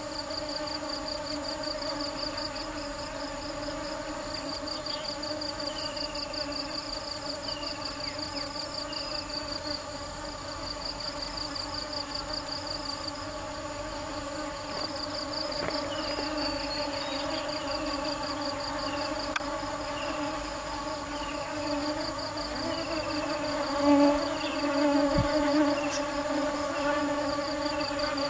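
Ambient electronic music: a steady buzzing drone with a fast pulsing texture high above it and short falling chirps, swelling a little louder near the end.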